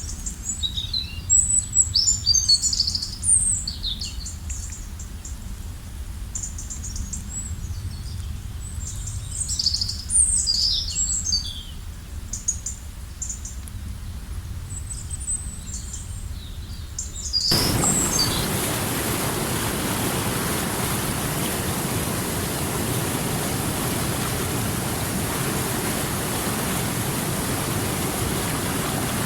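Birds chirping and singing in quick, scattered phrases over a low rumble. About two-thirds of the way through it cuts abruptly to the steady, even rush of flowing river water.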